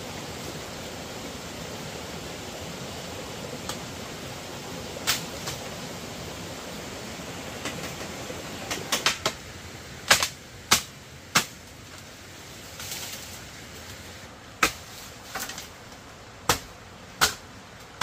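Sharp, irregular knocks of a blade chopping bamboo, about a dozen strikes, some in quick runs of two or three, over a steady background hiss.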